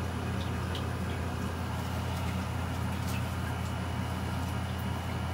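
Steady low hum of a running machine, even throughout, with a few faint small clicks over it.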